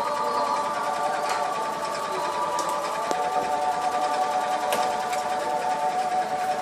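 Steady mechanical whine of a running motor, several tones held together, one of them stepping up in pitch about three seconds in.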